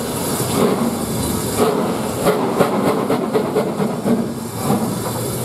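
BR Standard Class 4MT 4-6-0 steam locomotive 75078 moving off with its train, steam hissing from the open cylinder drain cocks. A rapid run of clanking knocks comes through the middle as the engine and coaches get under way.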